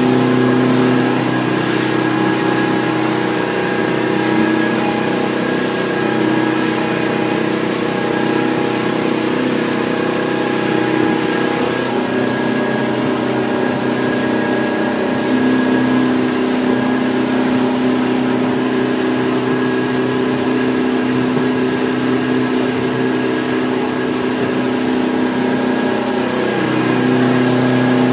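Hardy Navigator motor boat's engine running steadily under way, heard from inside the cabin; its note dips about twelve seconds in and picks up again near the end.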